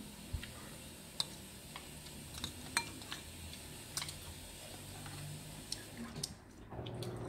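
Metal spoon clinking lightly against a ceramic bowl a few times, at scattered moments, while scooping up a steamed silkworm pupa; one clink rings briefly.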